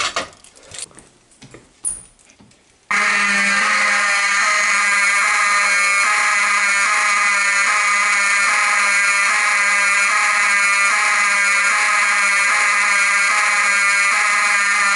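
A few light clicks and knocks, then about three seconds in several fire alarm horns start at once and sound loudly and steadily together, a full alarm on the test system.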